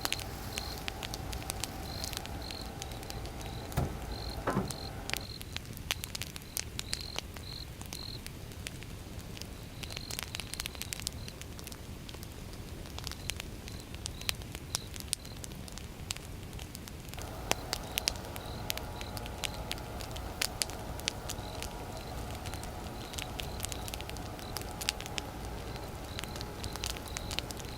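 Fire crackling, with sharp pops scattered irregularly throughout. A faint steady hum sounds for the first few seconds and again through most of the second half.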